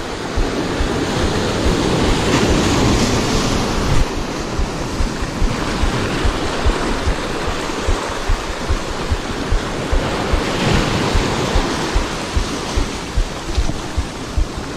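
Sea surf breaking and washing through rocks in a continuous rush of foaming water, swelling twice as waves come in. Underneath runs a rapid series of low buffeting thumps on the microphone.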